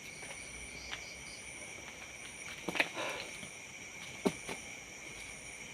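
Steady high-pitched chirring of night insects such as crickets, several tones at once. A few soft knocks sound about three seconds in and again just after four seconds.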